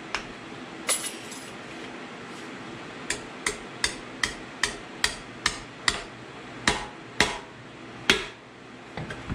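Hammer tapping a carrier side shim into place beside the differential carrier bearing in a Ford 8.8 rear axle housing, while setting ring-and-pinion backlash. One sharp tap about a second in, then a run of about a dozen taps, two to three a second, spacing out toward the end.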